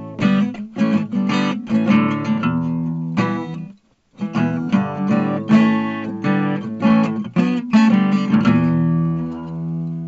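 Background music: plucked and strummed guitar, with a brief break about four seconds in.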